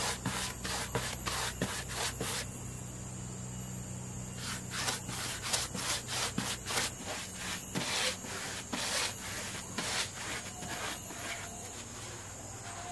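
Paintbrush scrubbing paint onto rough, weathered wooden planks in back-and-forth strokes, about two a second. The strokes pause for nearly two seconds about two and a half seconds in.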